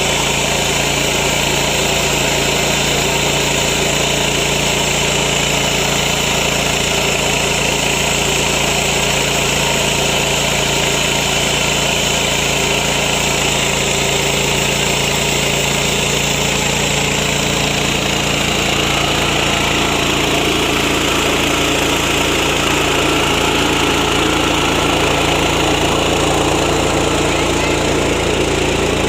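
Small 7 HP engine of a mini rice milling machine (Yasuka, MGX 210 engine) running steadily, with a slight shift in its tone about two-thirds of the way through.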